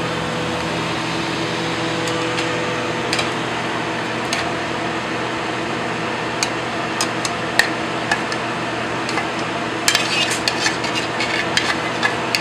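Metal utensils clinking against a pan and plate as pasta is plated, a few scattered clinks at first and then a quick run of them in the last couple of seconds. A steady kitchen ventilation hum runs underneath.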